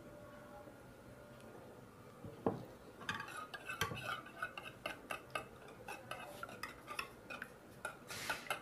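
Wire whisk beating eggs and oil in a ceramic bowl, its wires clicking fast and unevenly against the bowl. The whisking starts about three seconds in, just after a single knock.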